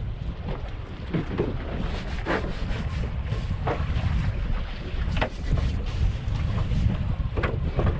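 Wind buffeting the microphone over choppy sea, with about five short splashes of waves slapping against the boat's hull.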